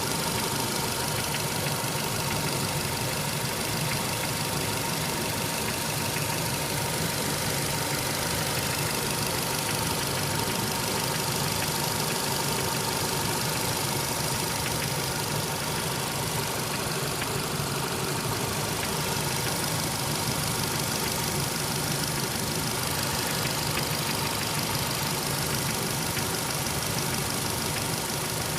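Engine idling steadily with a repeated knocking from inside it, a knock whose cause is unknown.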